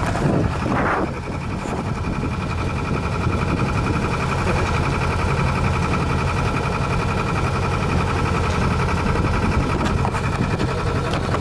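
A small boat engine running steadily at low revs, with a brief rush of noise about a second in.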